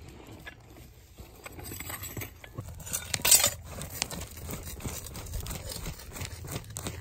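Bare hands scraping and digging through dry, gravelly dirt: soil crunching and small stones clicking, with a louder scrape about three seconds in.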